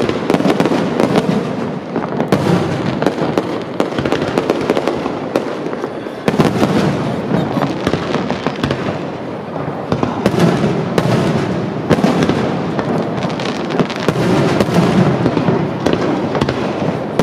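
Fireworks display: a dense, continuous barrage of bangs and crackling, with fresh surges of louder bursts about two, six and ten seconds in.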